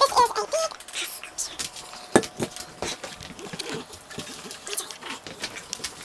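A dog nosing and mouthing an upside-down cup on a ceramic plate, making the cup scrape and clatter against the plate in quick, irregular clicks.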